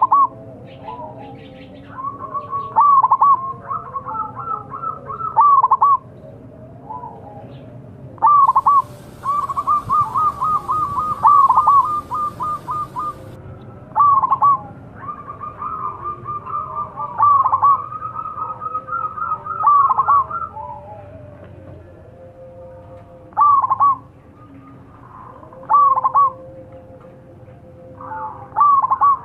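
Zebra dove cooing: repeated phrases of quick rolling notes, some in long runs and some as short, louder separate calls. From about nine seconds in, a hiss with a faint high steady tone runs under the calls for a few seconds.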